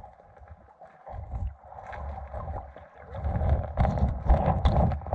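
Uneven low rumbling and buffeting on an action camera's microphone, louder and more turbulent from about three seconds in.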